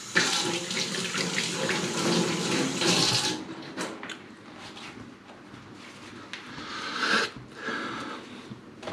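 Kitchen tap running into a stainless steel sink as hands are washed under it, louder for the first three seconds or so and quieter after.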